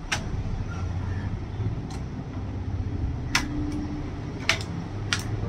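About five sharp plastic clicks spread over a few seconds as the Lenovo B490 laptop's keyboard is pried out of its clips, over a steady low hum.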